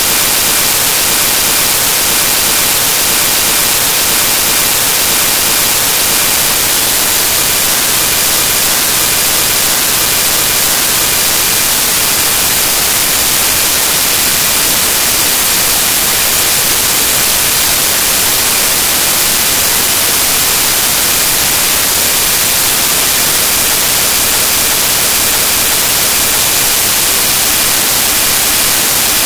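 Loud, steady static hiss from corrupted digital audio, strongest in the highest frequencies, with no change throughout.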